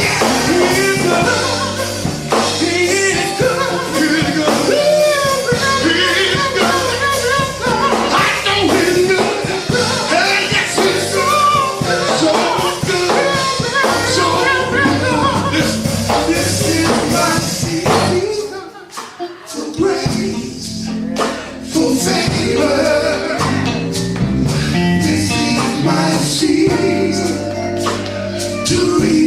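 Live gospel music: a band playing while a singer and the congregation sing a repeated praise chorus. The music drops out briefly about two-thirds of the way through, then comes back in.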